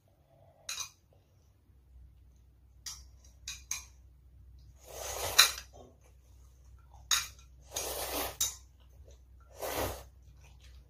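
Metal chopsticks clicking against a ceramic bowl a few times, then three noisy slurps of instant ramen noodles. The first slurp, about halfway through, is the loudest.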